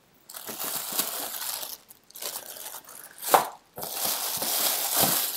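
Clear plastic packaging rustling and crinkling as it is handled and opened, in several stretches with short pauses.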